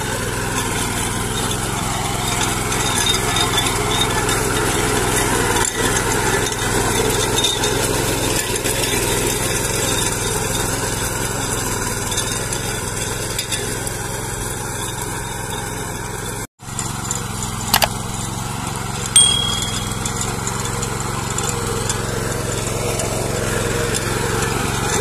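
Mini power weeder's 10 HP engine running steadily under load while its rotavator blades churn hard, cloddy soil. The sound breaks off for an instant about two-thirds through, and two sharp clicks follow shortly after.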